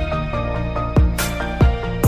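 Background music with a steady electronic kick drum beat, about one and a half beats a second, under sustained synth chords.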